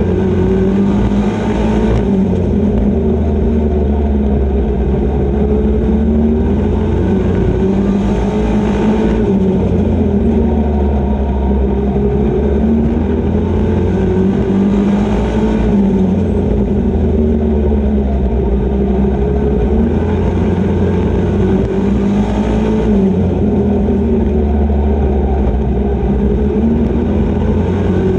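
Super Pro race truck's engine heard from inside the cockpit at racing speed, loud and continuous. Its note drops and then climbs again about every six to seven seconds as the driver backs off for the turns and accelerates out.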